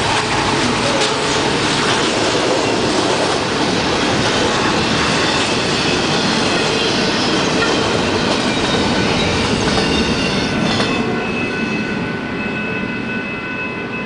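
Double-stack intermodal freight cars rolling past at close range: a steady, loud rumble and clatter of steel wheels on the rails. From about eleven seconds in the noise eases as the end of the train goes by, and a few thin, steady high tones ring on from the wheels and rails.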